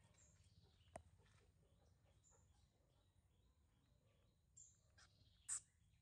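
Quiet outdoor ambience with a few short, high bird chirps, the loudest one near the end, and a single faint click about a second in.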